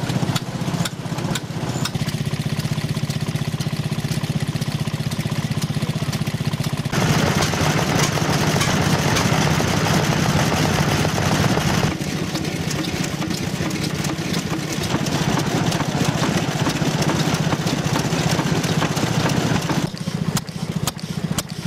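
Vintage Japanese stationary farm engines (hatsudōki) of the late 1930s to early 1940s running steadily, with a regular beat, the sound changing abruptly a few times.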